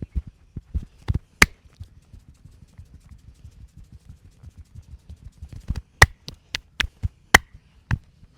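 Massage hand strokes on the ears and head: a soft, quick patter of pats and rubs, broken by two sharp clicks about a second in and a quick run of about seven louder sharp clicks near the end.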